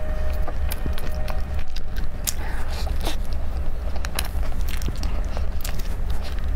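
Close-miked chewing and biting of a flaky pastry, with many short crisp crackles as the layers break, over a steady low hum.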